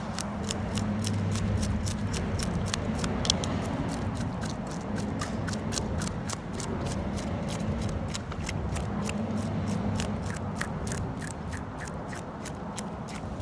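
Knife blade scraping the scales off a gutted snapper: quick repeated strokes, about three a second, each a short crisp scrape, over a steady low rumble.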